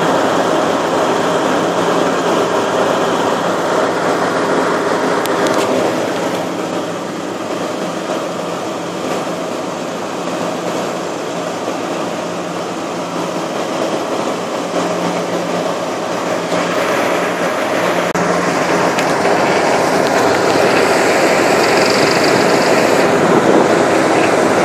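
A river ferry's engines drone steadily under a rush of wind and water on the open deck. The sound grows louder over the second half as the boat gets under way on the river.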